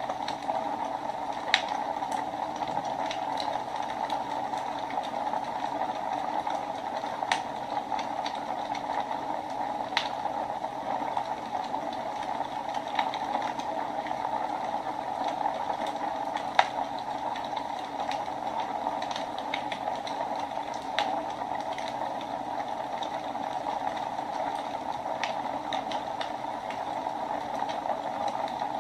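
Wood fire burning in a fireplace: a steady hiss with scattered sharp crackles and pops, the loudest about a second and a half in and again about sixteen and a half seconds in.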